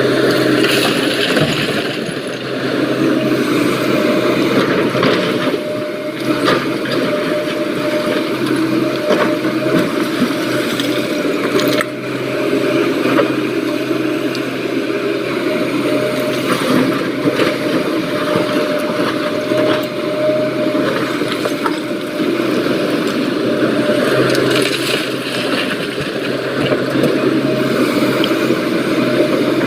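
SANY excavator's diesel engine running steadily under load while loading stone into a dump truck, with scattered sharp knocks, cracks and rattles of rock.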